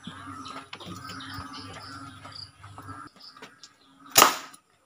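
A home-made PVC alcohol-combustion toy gun fires a 5.5 mm steel ball: one sudden loud bang about four seconds in, after a few seconds of faint background noise with small clicks.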